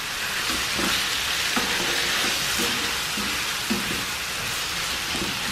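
Escalope pieces frying in a pan with onion, olives, corn and diced tomato: a steady sizzle.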